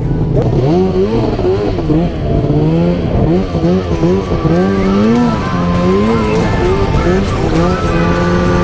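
Two-stroke snowmobile engine being revved, its pitch rising and falling in quick swells about twice a second, then holding a steady high pitch near the end.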